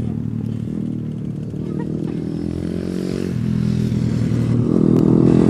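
Pit bike engine running under throttle, its pitch dipping early and then climbing again as it revs up near the end.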